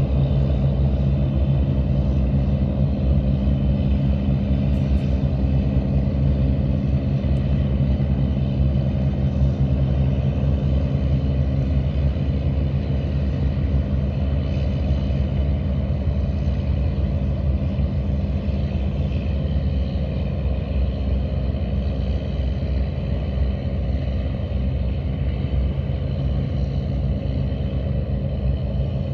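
Diesel engines of squid-fishing boats running under way, a steady low drone with a constant hum.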